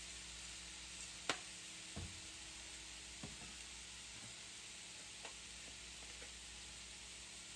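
Crab meat with onion and bell pepper frying in a pan, giving a faint steady sizzle. A few light clicks and knocks break it, the sharpest about a second in.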